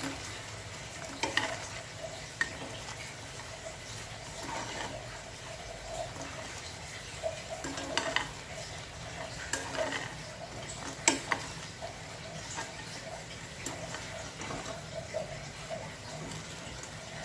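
A utensil stirring and scraping in a frying pan over a light sizzle, with scattered sharp clicks as it knocks against the pan, the loudest about eleven seconds in.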